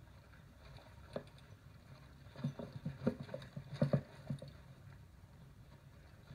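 Salsa Mukluk fat bike jolting over rocks on the trail: a quick cluster of knocks and rattles from about two and a half to four and a half seconds in, over a steady low rumble.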